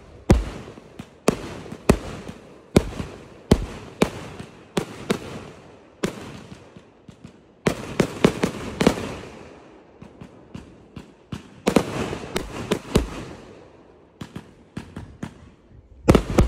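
Aerial fireworks going off in a quick, irregular run of sharp bangs, about one or two a second, each trailing off, with a few seconds' easing in the middle before they pick up again near the end.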